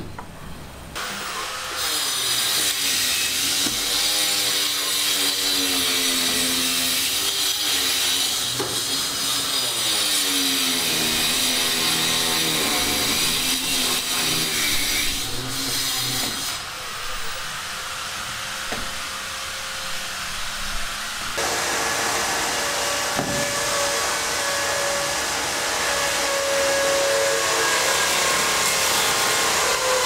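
Power tool cutting, with a grinding hiss and a motor pitch that sags and recovers again and again under load. After a drop in level part-way through, a steadier motor tone with hiss runs to the end.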